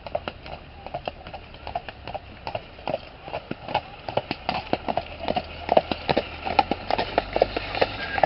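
Horse's hooves clip-clopping on a gravel lane as a horse pulls a carriage, a quick irregular run of knocks that grows louder as the horse draws near.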